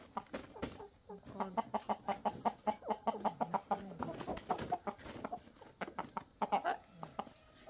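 Live chickens packed in a wire cage clucking in quick runs of short, repeated calls.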